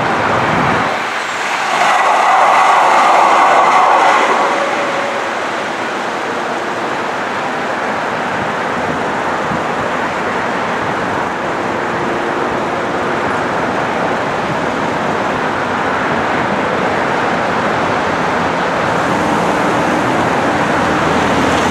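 Steady traffic noise from a busy highway, with tyres hissing on wet pavement. About two seconds in, a louder rush swells for a few seconds and then fades back into the steady noise.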